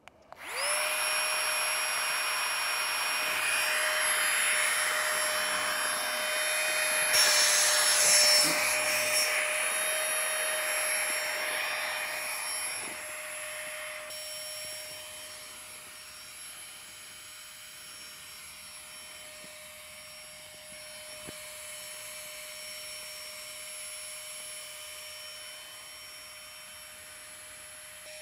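Flextail Gear mini electric air pump switched on just after the start, running with a steady whine and a rush of air as it inflates a sleeping pad. The rush of air drops away about halfway through while the whine holds steady.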